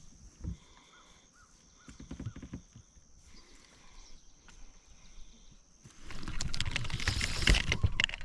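A few soft low knocks, then about six seconds in, loud splashing and sloshing water starts and keeps going.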